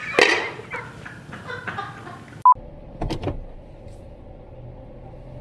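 Brief voice sounds, then a short beep tone about two and a half seconds in. After the beep comes the steady low hum of a vehicle's cabin with the engine running, broken once by a sharp click.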